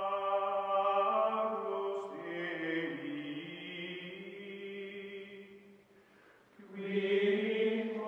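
Outro music of sustained choral chanting: long held vocal chords that fade away about six seconds in, then swell back a second later.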